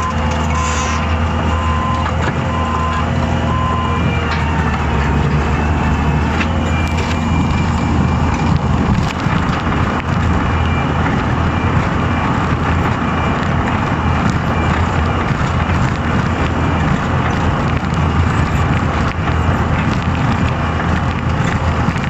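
Skid steer loader's engine running steadily under work. For the first few seconds its backup alarm beeps at an even pace while it reverses; after that the engine sound grows busier and fuller as the machine works.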